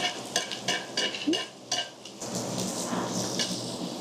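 Pork belly sizzling on a cast-iron cauldron-lid grill (sotttukkeong), with a run of sharp clicks and pops over the first two seconds, then a denser, steady sizzle from about two seconds in.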